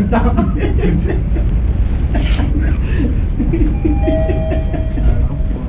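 Steady low rumble under muffled talk, with a short steady electronic tone starting about four seconds in and lasting over a second.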